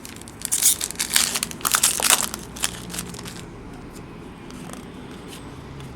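Foil trading-card pack wrapper crinkling as it is torn open and crumpled by hand, a dense burst of rustling and crackling for about three seconds, then a few faint ticks of cards being handled.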